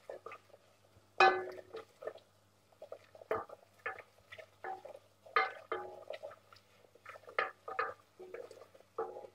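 Wooden spoon stirring a butter-and-flour roux in a stainless steel saucepan for a white sauce, scraping and knocking against the pan in irregular strokes, some with a brief ring from the metal.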